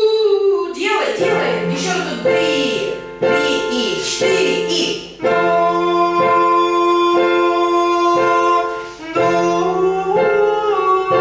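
A voice singing a vocal exercise with keyboard accompaniment: the pitch glides at first, then held notes step from one pitch to the next.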